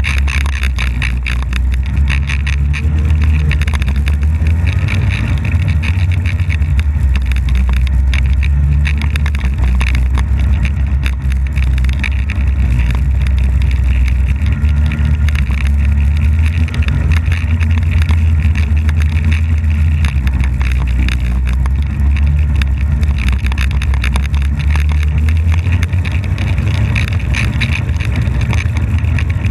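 Polaris snowmobile running at a steady pace, heard up close from the hood with a deep, even rumble and no marked revving.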